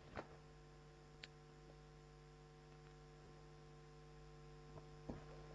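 Near silence: a faint steady electrical hum in the recording, with a few faint clicks.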